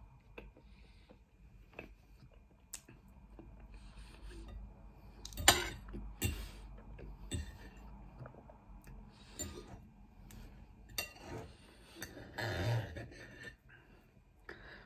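Metal knife and fork clinking and scraping on a plate in scattered, irregular knocks, the loudest about five and a half seconds in and a busier run of them near the end.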